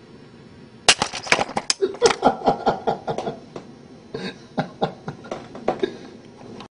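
A sharp knock about a second in, then a person laughing in quick repeated bursts, with a brief pause near the middle before the laughter starts again.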